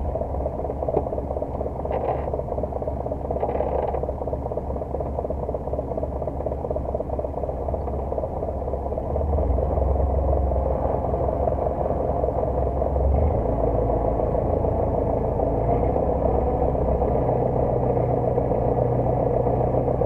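Marshall 132 tractor engine running, heard from inside the cab. It gets louder about halfway through and changes pitch a few seconds later as the tractor is driven.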